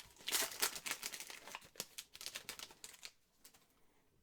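Foil trading-card pack wrapper crinkling and rustling in the hands, with a dense run of crackles that fades after about three seconds.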